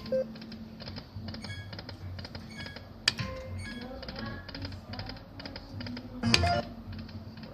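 Poker machine sounds: rapid electronic ticking and short chiming tones. A sharper click comes about three seconds in, and a louder click with a low thump a little after six seconds.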